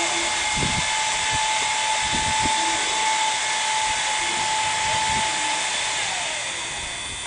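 A machine motor running steadily with a hiss and a high whine. The whine slides down in pitch and fades near the end.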